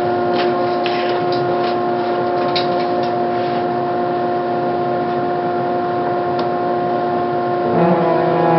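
Workshop dust collector and drill press running with a steady hum of several held tones; a little before the end a lower tone joins in and the sound gets slightly louder.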